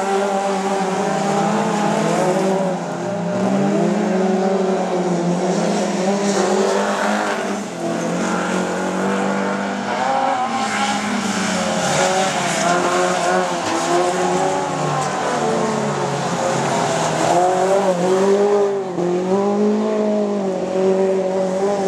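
Engines of several small hatchback race cars revving hard on a dirt track, their pitch climbing and dropping again and again as they accelerate and lift off through the corners.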